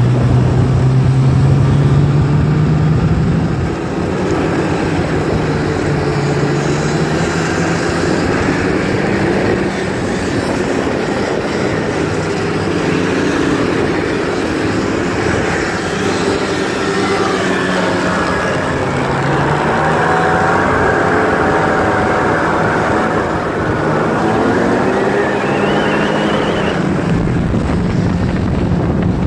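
Snowmobile engines running while the sleds ride along a snowy trail, their pitch rising and falling with the throttle, with a climb and drop near the end.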